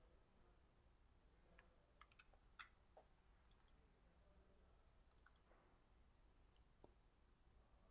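Near silence with a scattering of faint computer mouse clicks. Two quick clusters of high ticks come about three and a half and five seconds in.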